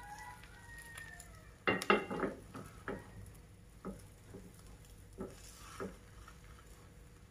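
Metal fork scraping and tapping against a nonstick frying pan while stirring frying egg and peanuts, over a faint sizzle. A quick run of loud scrapes comes about two seconds in, followed by a few single taps.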